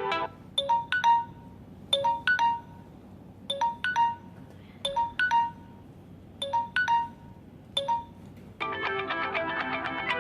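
Samsung Galaxy J4+ ringtone playing: a short figure of two or three quick bright notes, repeated six times about every second and a half. Near the end the next, fuller ringtone with held chords begins.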